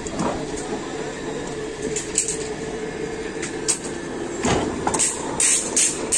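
Rebar bending machine running with a steady motor hum while its turntable bends a bundle of steel bars. A heavy knock comes about four and a half seconds in, followed by a run of sharp metal clanks near the end.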